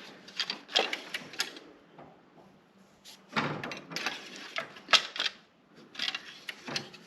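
Dipstick being handled on a Briggs & Stratton Vanguard small engine during an oil-level check: short plastic clicks and rattles in three bursts, with a faint steady hum underneath.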